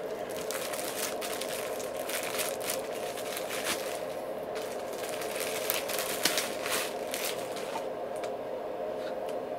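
Clear plastic bag crinkling and rustling as an LED video light panel is pulled out of it: a run of sharp crackles that dies away about eight seconds in.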